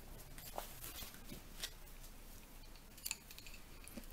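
Wooden double-pointed knitting needles clicking against each other as stitches are knitted: a few faint, sharp clicks about a second apart.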